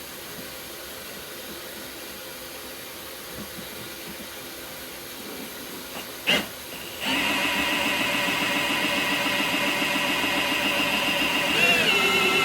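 Faint steady hiss, then a sharp click, and about seven seconds in a cordless hammer drill starts up driving a flexshaft drain-cleaning cable. Its motor runs at a steady high pitch, which shifts slightly and gets a little louder near the end.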